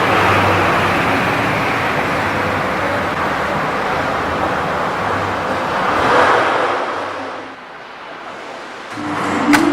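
MJ F6 multi-rip saw running and cutting timber, a loud steady noise that dips for a second or so about three-quarters of the way through, then picks up again with a sharp click near the end.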